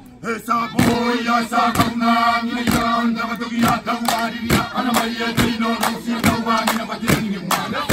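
Kiribati dance group's chorus chanting in unison over a held low note, with a sharp percussive beat about once a second.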